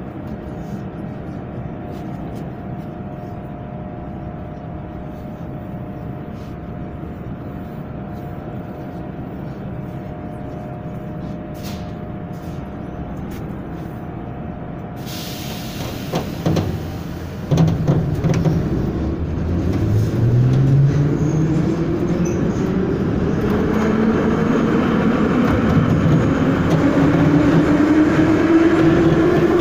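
Ezh3 metro car running with a steady rumble. Past the halfway point a hiss and a few knocks come in, then the traction motors' whine rises steadily in pitch and grows louder as the train accelerates.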